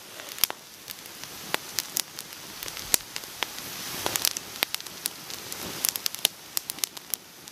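Wood campfire crackling, with irregular sharp pops over a faint steady hiss.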